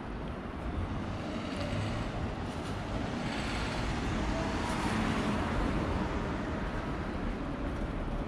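Road traffic noise from cars passing on a city street, swelling about three seconds in as a vehicle goes by.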